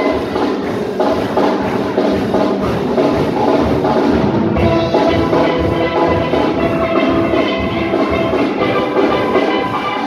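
Steel drum band playing live: steel pans ring out the melody and chords over a drum kit keeping a steady beat. The pan notes fill out higher up from about halfway through.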